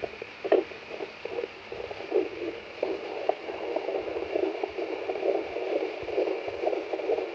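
Fetal Doppler loudspeaker playing the ultrasound probe's signal: a steady hiss with pulsing whooshes of the fetal heartbeat. The whooshes are sparse at first and become rapid and continuous from about three seconds in. The sound cuts off suddenly just after the end.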